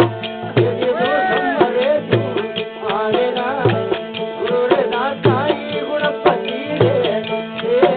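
Bhajan music: a hand drum keeps a steady beat of deep strokes under a sustained drone and a wavering melody line.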